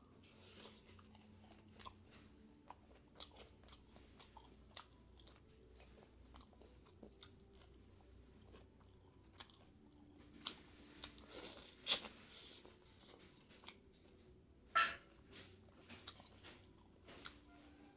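Close-miked chewing and biting of pork and bamboo shoots: a steady run of small wet clicks and crunches, with a few sharper, louder bites, the loudest about twelve and fifteen seconds in.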